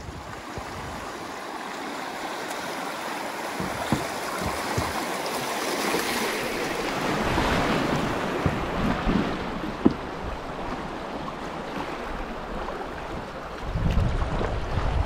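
Fast river water rushing and splashing around a kayak running shallow riffles, swelling in the middle, with a few light knocks. Wind buffets the microphone near the end.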